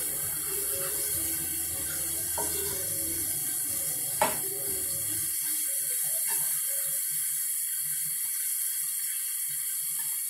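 Ground beef sizzling in a cast iron skillet as it browns, a steady hiss while it is stirred with a spatula, with one sharp knock about four seconds in. A low hum underneath stops about halfway through.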